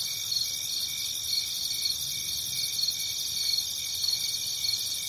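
A chorus of crickets chirping in a steady, even pulse, dropped in as a sound-effect clip that starts and cuts off abruptly. It is the comic "crickets" gag standing in for listener messages that never came.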